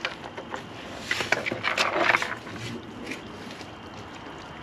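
A raccoon scrabbling inside a hanging cardboard tube: a burst of scratching and rattling about a second in that lasts about a second and a half, then dies down to a low background.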